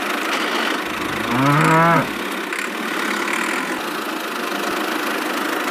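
A single cow moo, under a second long and slightly rising in pitch, about a second and a half in, over a steady engine-like running sound.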